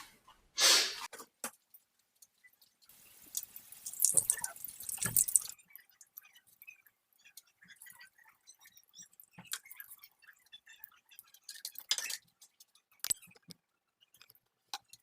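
Herring cutlets frying in plenty of hot oil in a frying pan: a loud sizzle from about three to five and a half seconds in, then scattered crackles and pops.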